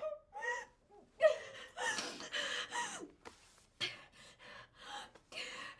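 A young girl crying hard: short wailing sobs broken by gasping breaths.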